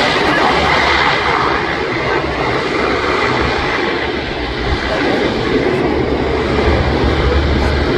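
Canadair CL-215 amphibious aircraft flying by, its engines and propellers making a steady, loud, noisy drone; a low hum grows stronger near the end.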